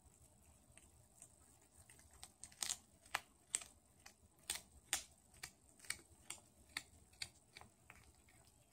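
Domestic cat chewing a mouse, a run of sharp crunches roughly two a second, faint at first and louder from about two and a half seconds in.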